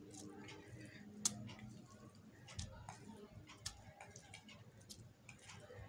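Quiet kitchen handling: faint clicks and taps, the sharpest about a second in, as soft soaked bhallas (fried lentil dumplings) are laid one by one into a glass bowl of yogurt.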